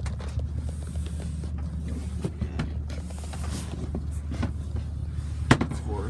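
Handling noise from a phone held against clothing: fabric rustling and small knocks on the microphone, with one sharper knock about five and a half seconds in, over a steady low hum.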